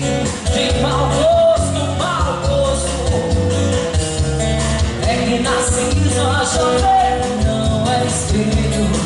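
Live band playing an MPB song: bass and drums keeping a steady beat under a gliding melodic line.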